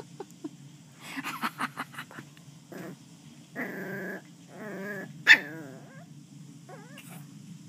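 West Highland white terrier puppy growling and barking in play: a string of short wavering growls and whines, with one loud sharp bark about five seconds in.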